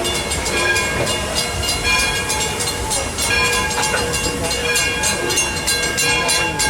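A passenger train running along the rails, heard from aboard: a steady rumble with fast rattling and clatter, and several high-pitched ringing tones held throughout.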